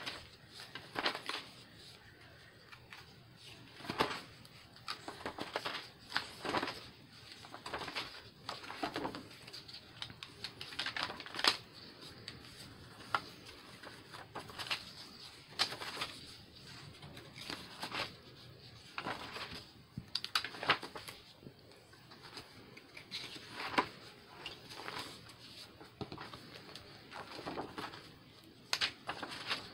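Paper pages of a handmade ring-bound book being turned by hand: irregular rustles and flaps of paper, one every second or two.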